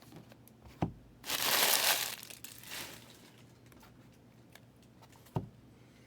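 Trading-card pack wrapper being torn open and crinkled, a loud rustle lasting about a second and then fading. A dull knock comes just before it and another near the end.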